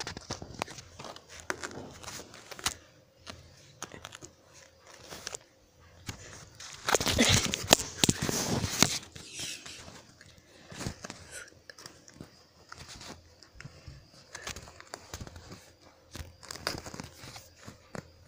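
Crinkling, rubbing and scraping of faux-leather upholstery and fabric as a phone is worked into the gap of a piece of furniture, with scattered clicks and a louder scraping stretch about seven seconds in.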